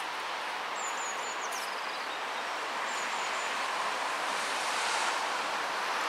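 Steady hiss of road traffic, swelling a little after the middle. A small bird gives a quick run of high chirps about a second in and a shorter run about three seconds in.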